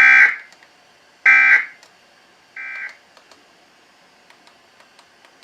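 Emergency Alert System End of Message signal: three short bursts of SAME digital data tones, a harsh two-tone warble, about a second and a bit apart. The third burst is much quieter than the first two. This marks the end of the test alert.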